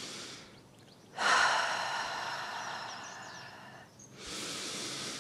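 A woman's deep, slow breathing. A long exhale through the mouth starts about a second in, loudest at its onset and trailing off over nearly three seconds, then a quieter inhale follows near the end.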